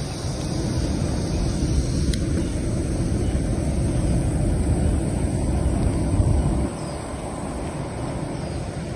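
Wind buffeting the microphone while riding a bicycle along a road: a steady low rumble that drops a little about two-thirds of the way through.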